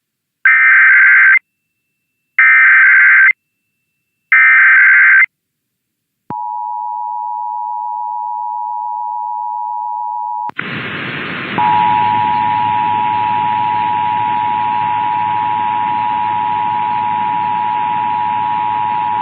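Emergency Alert System test broadcast: three short bursts of warbling digital data tones (the SAME header, sent three times). Then the two-tone EAS attention signal (853 and 960 Hz) holds steady for about four seconds. It cuts abruptly to a hissy radio reception where the same attention tone sounds again from about a second later and runs on.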